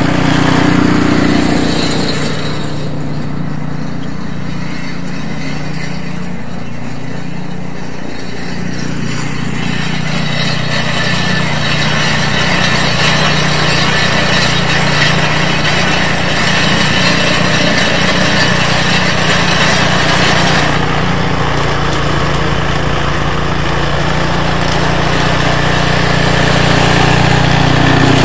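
REDVERG RD-SB60/950BS-E two-stage snowblower's American-made Briggs & Stratton engine running steadily while the machine clears snow. Its level dips a little for several seconds and then comes back up louder near the end.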